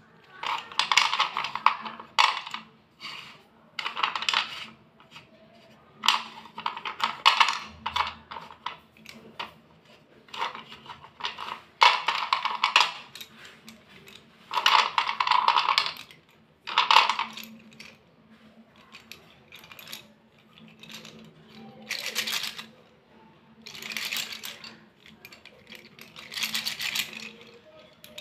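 Thick white Vaigai-brand slate pencils clattering and clinking against one another as a handful is shuffled and rubbed together in the hands, in repeated bursts every second or two.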